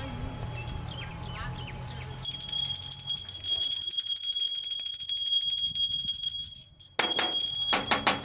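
Electric doorbell ringing: a long, rapid, loud ring starting about two seconds in, a brief break, then a second ring near the end.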